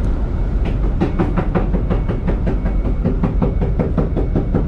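Airport shuttle bus running, a steady low rumble in the cabin, with a quick even run of rattling clicks, about five a second, from about a second in until near the end.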